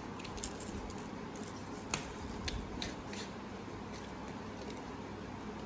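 Paper craft being handled: a few light paper rustles and taps over steady room noise, the sharpest about two seconds in.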